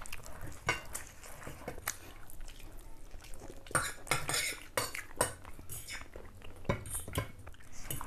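Metal fork and spoon clinking and scraping on ceramic plates during a meal, in irregular clicks and scrapes that are busiest about four seconds in and again near seven seconds.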